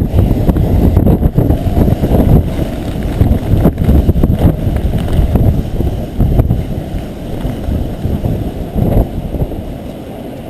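Storm wind buffeting the microphone: a loud, gusting rumble that eases somewhat near the end.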